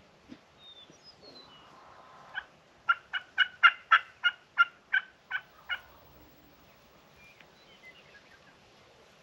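Hen turkey yelps on a WoodHaven Hammer T mouth call: a single yelp, then a run of about ten sharp, evenly spaced yelps at about three a second. Faint songbird chirps around them.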